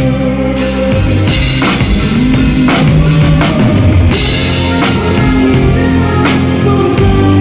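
Rock band music with a live drum kit playing along: bass drum and snare hits with Zildjian K cymbal crashes over sustained guitar and bass.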